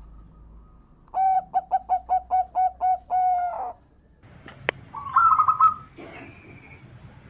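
Zebra dove (perkutut) cooing: a quick run of about nine short staccato coo notes that ends in a longer held note. About a second later comes a sharp click and a brief, higher trilling call.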